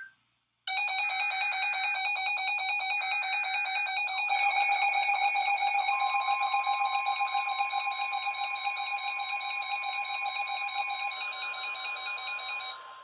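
Emergency alert tones: a fast-pulsing, buzzy electronic alarm beep, with warbling data tones under it in the first few seconds. About six seconds in, a steady single warning tone joins, of the kind NOAA Weather Radio sends. The pulsing alarm stops near the end while the steady tone goes on.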